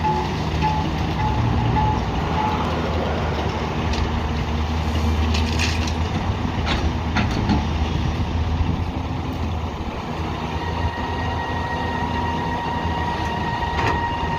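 Heavy diesel construction machinery running with a steady low rumble. A reversing alarm beeps about twice a second for the first two seconds or so. A few sharp clanks come in the middle, and a steady high whine sets in about two-thirds of the way through.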